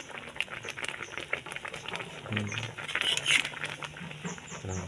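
Chicken cooking in a wok over a wood-fired stove, with irregular crackling and popping.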